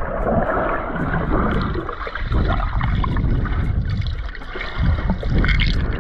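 Rushing river water close to the microphone: a loud, even wash of noise with an uneven low rumble underneath.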